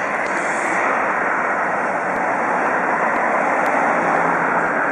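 Steady rush of traffic on a busy highway-like road, the tyre and engine noise of passing cars swelling slightly.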